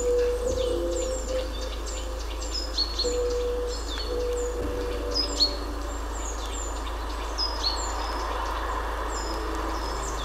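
Songbirds chirping, many short high notes falling in pitch, over a meditation soundscape of soft sustained singing-bowl tones that come and go and a steady low hum.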